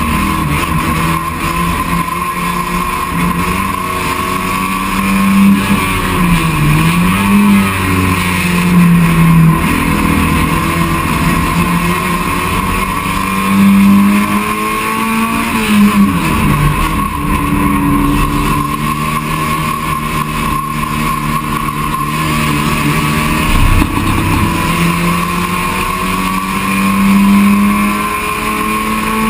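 Touring race car's engine heard from inside the cockpit at racing speed, its pitch dropping and climbing again a few times as the car brakes, shifts and accelerates out of corners, over a steady rush of wind and road noise.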